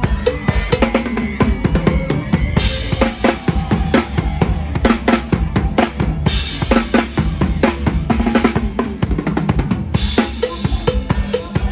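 Drum kit played fast in a live mor lam band: rapid bass-drum and snare hits with rimshots, and a cymbal crash about every four seconds over the band's bass line.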